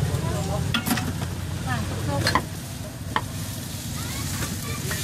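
Street-food stall ambience: a steady low hum under an even hiss, with three sharp clacks of kitchenware, about one, two and a half, and three seconds in.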